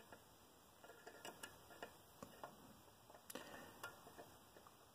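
Near silence with faint, scattered light clicks and ticks, a few short irregular ones spread through the middle seconds.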